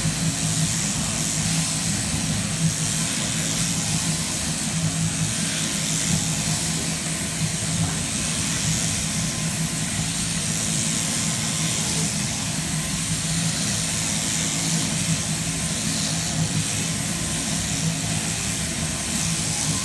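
Electric sheep-shearing handpiece on an overhead shearing-plant drive, running steadily as it cuts through the fleece, with a constant low hum.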